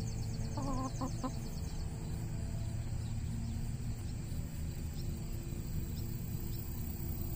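Chicken clucking, a short run of about three clucks about a second in, over a steady low rumble.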